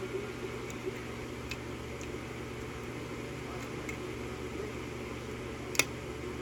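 Faint metallic clicks of a lock pick working the pins of an EVVA euro cylinder under light tension, with one sharper click near the end, over a steady low hum.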